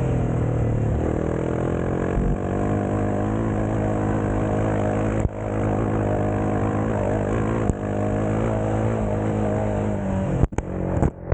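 Motorcycle engine running under way, its pitch climbing in the first couple of seconds and then holding fairly steady, with two brief dips in level about five and eight seconds in. Near the end the sound breaks off in short, abrupt gaps.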